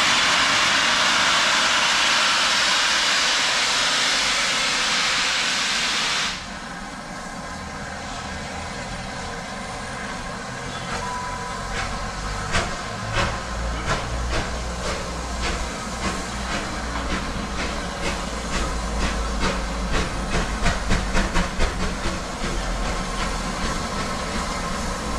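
Steam locomotive 35028 'Clan Line', a three-cylinder Bulleid Merchant Navy class 4-6-2, blowing a loud hiss of steam that cuts off suddenly about six seconds in. It then gets its train away: a low rumble, then sharp exhaust beats that come quicker and louder toward the end.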